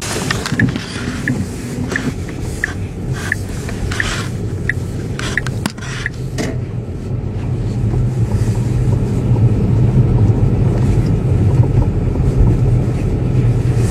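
Inside the cabin of a Tesla with air suspension rolling over paving stones: a steady low tyre-and-road rumble that gets louder in the second half, with a run of light clicks during roughly the first half. The clicking is the front shock absorbers' dice-cup rattle, click, click, click, as if something up front were loose, a known fault on post-April-2016 facelift Teslas with air suspension that the owner traces to the shock absorber itself, carried into the cabin through the strut tower brace.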